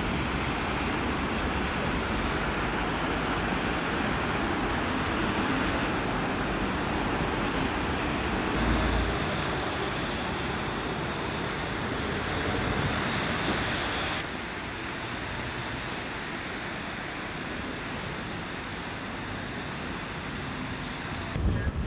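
Steady rushing outdoor ambience of wind and distant city traffic, with a low buffet of wind on the microphone about nine seconds in; the rush turns a little quieter about fourteen seconds in.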